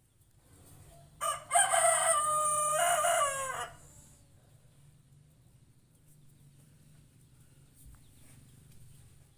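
A rooster crows once, a single call of about two and a half seconds that drops in pitch at the end.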